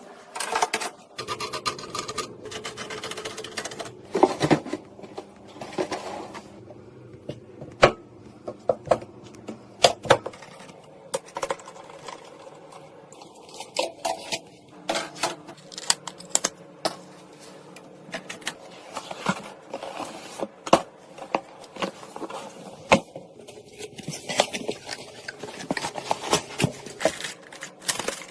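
Irregular clicks, taps and scraping of small hard metal and plastic parts being handled and fitted together, as in assembling a computer.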